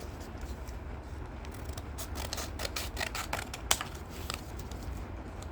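Scissors cutting through plastic packaging, a run of irregular sharp snips and clicks, loudest a little over three and a half seconds in.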